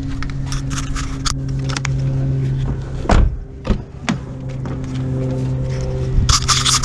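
Car doors being handled: a heavy thud about three seconds in, like a car door being shut, two lighter knocks after it, and a run of clicks and rattles near the end as the front door is opened. A steady low machine hum runs underneath.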